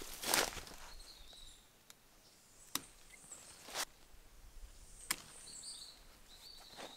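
Ripe cacao pods being cut from the trunk with a knife: a short rush of noise just after the start, then three sharp cuts spread over the next few seconds. Small birds chirp faintly.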